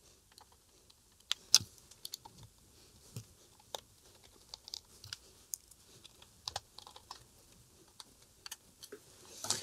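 Faint, scattered clicks and taps of small metal parts being handled: fingers and a thin metal tool working a gear and tension spring into a transistor radio's tuning mechanism.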